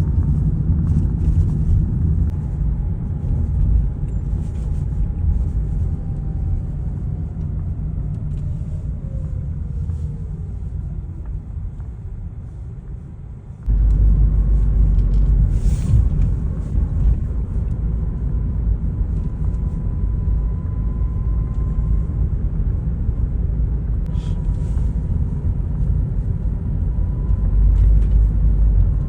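Outdoor city ambience dominated by a low, fluctuating rumble, with a faint whine that falls slowly in pitch over the first ten seconds. About fourteen seconds in the rumble suddenly gets louder, and a faint steady tone runs through it for a while after.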